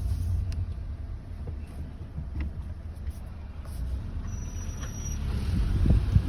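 Low rumble of a moving vehicle, with a brief thin, high squeal about four seconds in: a squeaking wheel.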